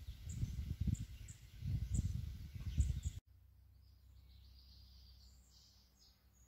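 Outdoor ambience on a phone microphone: irregular low rumbling gusts of wind on the microphone, with faint high ticks. About three seconds in it cuts to a quieter low steady hum with faint bird chirping.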